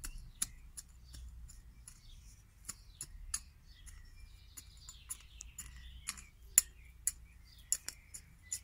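Small hand hoe striking into dry soil and holly roots: a series of sharp, irregular chops and clicks, roughly one or two a second.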